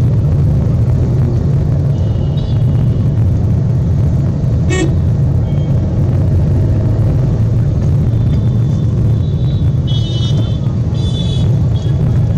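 Steady low rumble of a vehicle driving, heard from inside, while horns toot several times in the street traffic, loudest twice near the end.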